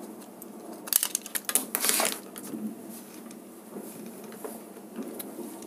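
Small clicks and scrapes from handling a plastic switch-and-socket plate as a wire is fastened into its terminal, with a cluster of clicks about a second in and a louder scrape about two seconds in.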